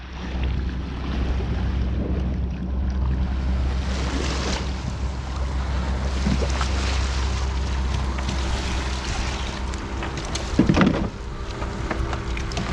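Boat underway: a steady low engine hum under wind blowing across the microphone and water noise, with a louder bump near the end.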